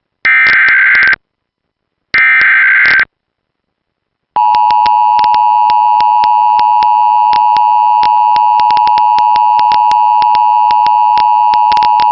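Emergency Alert System SAME header data bursts: two harsh, about one-second digital warbling bursts, the last of the three header repeats. Then, about four seconds in, the loud steady EAS attention tone begins and holds unbroken.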